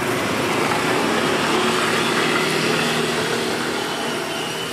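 Steady street traffic noise, a vehicle engine running close by, easing off slightly toward the end.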